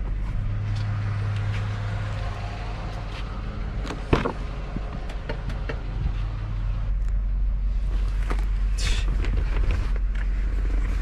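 Steady low hum of a 2003 Cadillac DeVille's 4.6 Northstar V8 idling, heard from inside the car, with rustling and one sharp thump about four seconds in.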